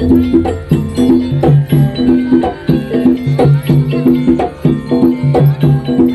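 Javanese jaranan (kuda kepang) gamelan music: drum and pitched gong-chime notes playing a fast, evenly repeating pattern.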